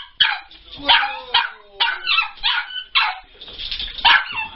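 Dog barking and yipping excitedly at about two sharp yips a second, with a falling whine in the first half, as it greets its owner coming through the door.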